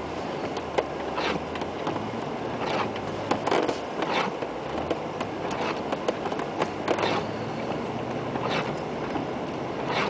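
Cabin sound of a 1997 Land Rover Discovery's V8 engine running steadily as it pushes through deep snow, over a constant rush of snow against the body. Brief swishes of the windscreen wipers recur about every one and a half seconds.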